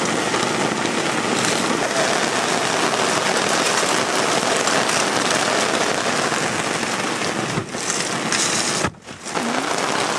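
Steady, fairly heavy rain falling, with a brief dip in level about nine seconds in.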